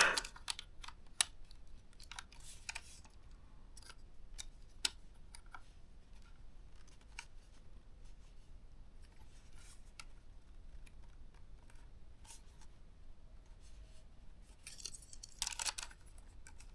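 Light scattered clicks and taps of plastic laptop parts being handled and pressed into place on a ThinkPad T430, with a short burst of scraping and rustling about fifteen seconds in.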